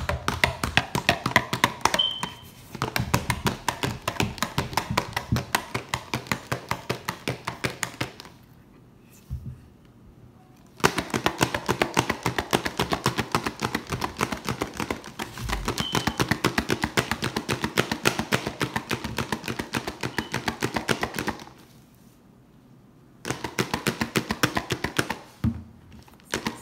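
A plastic Barbie Color Reveal tube holding a doll and foam being shaken hard: a rapid rhythmic rattling and sloshing, several strokes a second. It stops twice, for about two seconds each, once about a third of the way in and again near the end.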